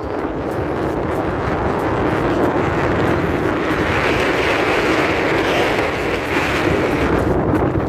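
Wind buffeting the microphone, a steady rushing noise that swells a little about halfway through.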